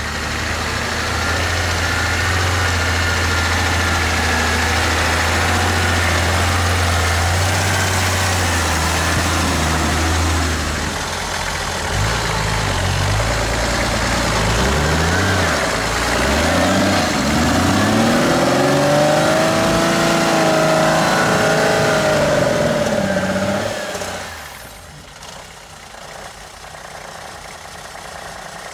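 Custom Toyota Land Cruiser rock crawler's engine running under load as it crawls over rough ground. A steady low drone gives way about halfway through to repeated rises and falls in pitch as the throttle is worked, and the sound drops off to a lower level near the end.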